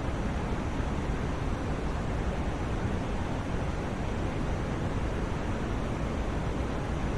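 Continuous white noise for sleep: an even, unchanging rushing hiss, fuller in the low end than the high.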